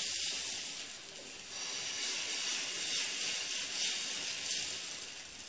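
Wheat-flour dosa batter sizzling on a hot pan as it is ladled on, a steady hiss.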